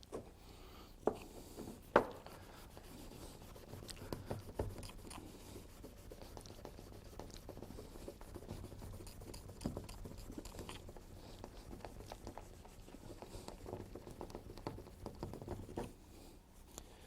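Faint scuffing and rubbing of rubbing compound being worked by hand over a plastic lamp lens to polish out fine sanding scratches. Two sharp clicks or knocks come about one and two seconds in, the second the loudest.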